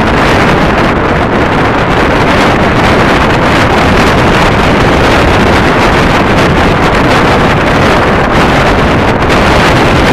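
Loud, steady rush of wind buffeting the microphone from a moving train, with the train's running noise underneath.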